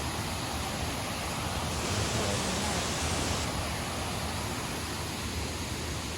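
Waterfall rushing steadily, running full after heavy rain, with its hiss briefly brighter about two seconds in.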